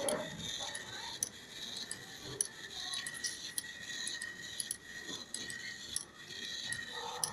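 Small solar-powered toy robot dog walking: its tiny gear motor whines steadily while the plastic legs and gears tick and rattle irregularly.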